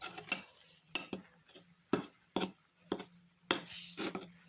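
A spoon stirring a foaming mix of baking soda and lemon juice, clinking against its container in short, sharp taps about twice a second.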